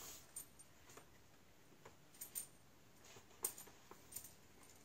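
Faint, scattered light clicks and taps from a TIG welding torch and its coiled lead being handled and unwrapped, the loudest a little past the halfway point.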